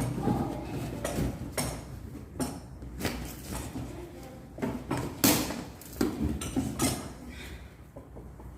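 Balloons being handled and pushed onto a balloon stand: irregular rubbing and knocking handling noises, the loudest knock about five seconds in.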